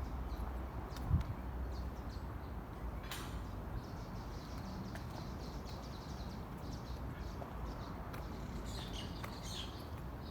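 Small birds chirping in short runs, over a steady low rumble. There is a single dull thump about a second in.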